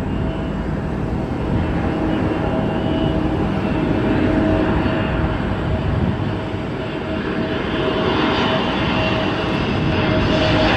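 Airliner engines running with a steady whine over a rushing rumble, the high hiss swelling over the last few seconds.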